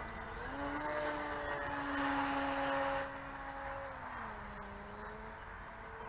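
Electric motor and propeller of a Seagull RC model plane in flight: a steady whine that rises in pitch about half a second in, is loudest around two to three seconds in, and drops to a lower pitch about four seconds in.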